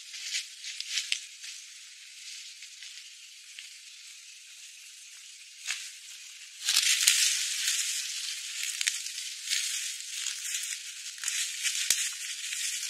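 Dry leaf litter crackling and rustling under footsteps, with a few sharp clicks; it gets louder about two-thirds of the way in. The sound is thin, with no low end at all.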